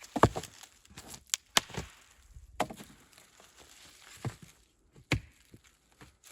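Wood being struck, about six sharp, irregular blows with light rustling between them; the loudest comes about a quarter second in.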